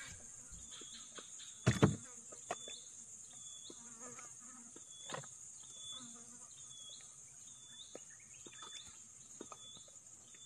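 Steady high-pitched insect drone with a short chirp repeating about once a second. Scattered small clicks run through it, and there is one loud thump about two seconds in.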